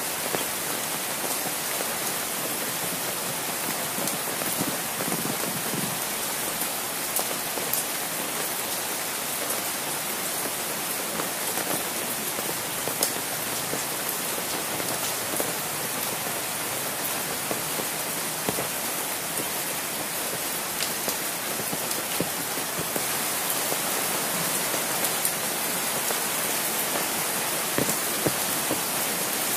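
Steady rain falling, with frequent sharp ticks of single drops landing close by.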